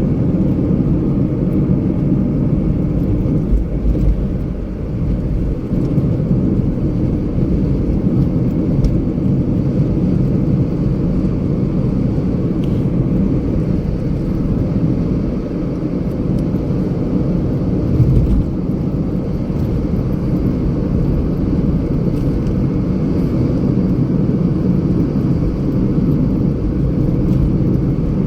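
Steady low rumble of a moving vehicle, with a brief low thump about eighteen seconds in.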